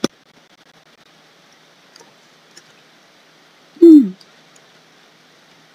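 Low steady room hiss with a sharp click right at the start and a few faint ticks, then a short hummed 'hmm' from a man's voice, falling in pitch, about four seconds in.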